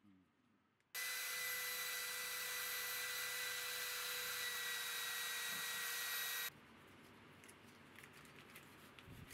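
Hand-held rotary tool spinning a small bit against a rusty metal plate to clean off the rust: a steady high-speed whir with a thin whine that starts suddenly about a second in and cuts off after about five and a half seconds. Afterwards a cloth rubs polish on the plate with light scraping and clicks.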